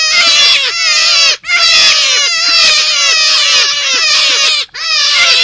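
Forest rabbit calls from a lure recording: a loud, fast run of high squeals, each sliding down in pitch, several a second. The runs are broken by short pauses about a second and a half in and near the end.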